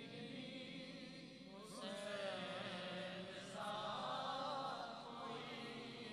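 Men's voices chanting a devotional refrain together, unaccompanied and faint, in long drawn-out phrases; a new phrase comes in just under two seconds in and another about halfway through.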